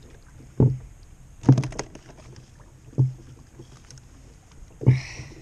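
Four irregular hollow knocks on a plastic sit-on kayak's hull, about a second or two apart, the last one with a short hiss.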